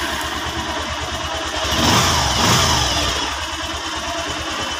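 Bajaj Rouser 220's single-cylinder engine idling just after starting, with one brief rev about two seconds in before it settles back to an even idle.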